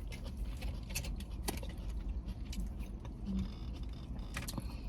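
Close chewing and crunching of crispy fried food: scattered sharp crunches and mouth clicks over a steady low hum.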